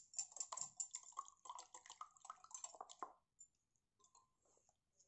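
Wire whisk beating eggs in a glass bowl: quick clicking of the wires against the glass with wet sloshing, stopping about three seconds in.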